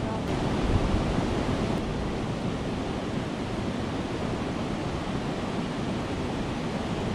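Steady rush of white water tumbling over a river weir into the pool below.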